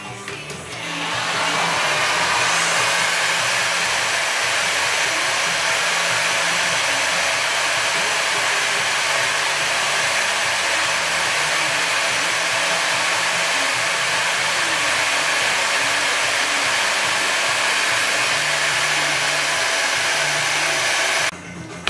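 Steady, loud rushing hiss of blown air. It builds up about a second in, holds even, and cuts off suddenly near the end.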